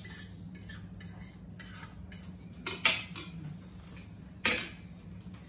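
Forks clinking and scraping against dinner plates in scattered sharp taps, two of them louder, about three and four and a half seconds in, over a steady low hum.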